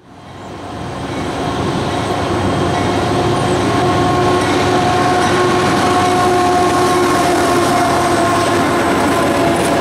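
Freight train's diesel locomotives rolling past close by: a loud, steady rumble of engines and wheels on rail with several held tones over it, fading in over the first second or two.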